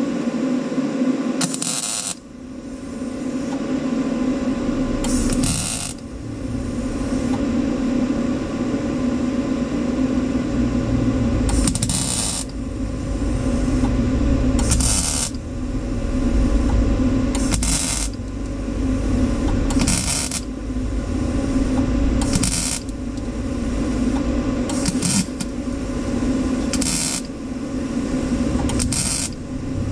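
Welder laying a series of short tack welds on a sheet-steel rocker panel patch: about a dozen brief bursts of arc crackle, each under a second, spaced every two to three seconds. A steady hum from a fan or the welder runs underneath.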